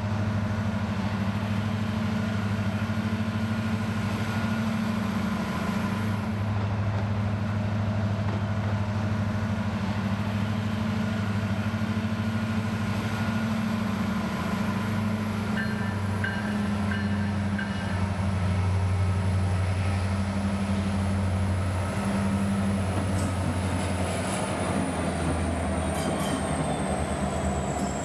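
Two EMD SD70ACe diesel locomotives leading a loaded coal train, their V16 two-stroke engines running with a steady low drone as they approach and pass close. A thin high whine falls in pitch near the end as the units go by.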